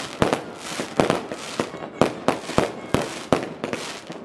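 Fireworks display: a rapid series of sharp bangs, about two to three a second, over a steady crackling haze.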